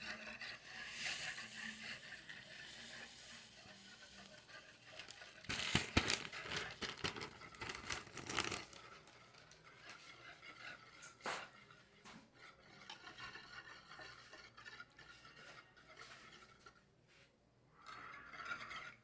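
Quiet kitchen handling: a spoon stirring and scraping a mixture of granulated tapioca and coconut milk in a dish, with a few light clinks of the utensil against it.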